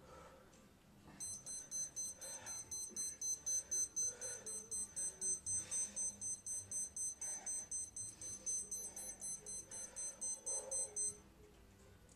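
Electronic timer alarm beeping in quick high-pitched pulses, about four a second. It starts about a second in and stops about a second before the end.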